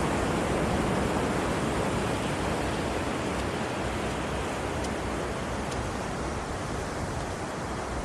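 Sea surf washing on the beach: a continuous rushing noise that eases off a little toward the end.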